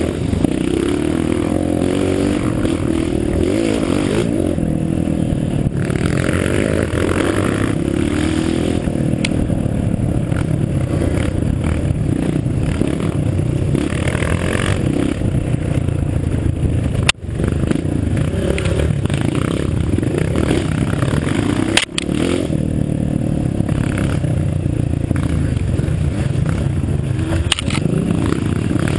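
Engine of an off-road vehicle running steadily under load on a dirt trail, with two sharp momentary breaks in the sound.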